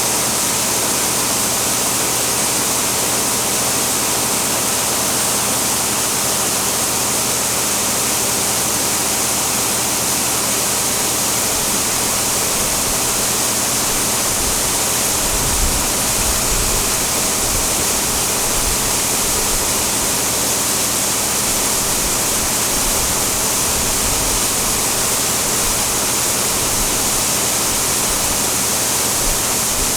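Grain dryer running, giving a loud, steady rushing noise from its fan.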